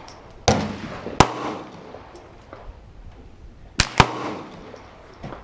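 Gunshots at a shooting range: four sharp shots, two in the first second or so and a quick pair about four seconds in, then a fainter shot near the end, each trailing off in reverberation.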